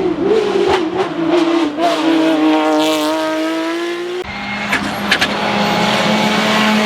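Race car engine revving hard under full acceleration, its note wavering and then climbing steadily. About four seconds in the note changes abruptly to a lower, steady pitch, with a few sharp cracks around five seconds.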